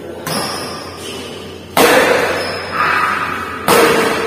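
Badminton rackets striking a shuttlecock in a rally: four sharp hits roughly a second apart, the second and fourth loudest, each echoing in the large hall.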